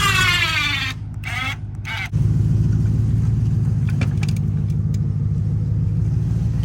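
Winch motor running steadily while it drags a dirt plow, getting louder about two seconds in, with a falling whine at the very start.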